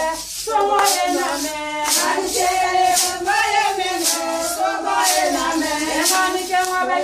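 Singing with music, a voice line gliding up and down over a sharp beat struck about once a second.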